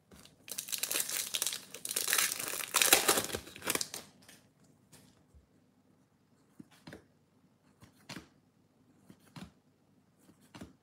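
Foil wrapper of a Bowman baseball card pack crinkling and tearing open for about three and a half seconds. After it come a few faint soft clicks as the trading cards are slid one behind another.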